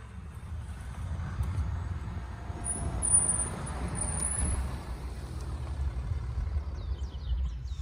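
A 2021 Land Rover Defender driving past on a dirt car park surface: engine and tyre noise swelling as it comes close, with a thin high whine as it passes, then easing off as it moves away.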